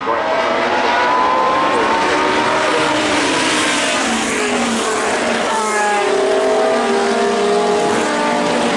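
A pack of classic endurance racing cars, sports prototypes and GT cars, accelerating through a corner at a race start. Many engines are heard at once, loud and steady, their pitches rising and falling as the cars pass and change gear.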